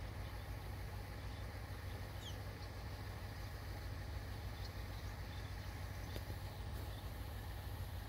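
Steady low rumble of distant engines, with a few faint, short high chirps scattered through.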